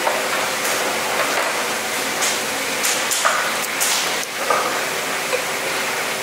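A milkfish being cut and gutted by knife on a wet wooden cutting board: a handful of short knocks and wet slaps of knife and fish on the board, over a steady hiss like running water.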